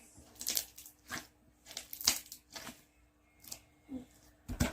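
A series of short rustling and scraping handling noises, about one every half to one second, over a faint steady hum.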